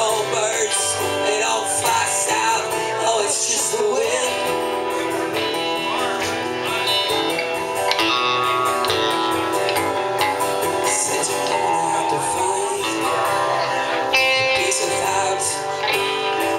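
Live acoustic guitar strumming with an electric guitar playing lead lines over it, some notes sliding in pitch.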